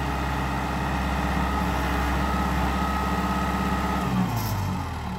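Kubota M7040 tractor's diesel engine running steadily as the front loader lowers its bucket, with a faint high whine over it. About four seconds in, the whine stops, the engine speed drops and the sound gets a little quieter.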